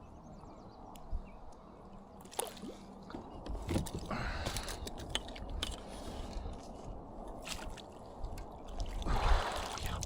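Water dripping and sloshing against a kayak, with scattered clicks and knocks of handling. A louder swell of splashing comes about four seconds in and again near the end.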